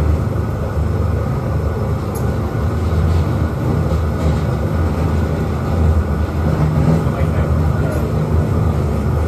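Tokyo DisneySea Electric Railway train running along its track, heard from on board: a steady low rumble of wheels and motor, with a few faint ticks.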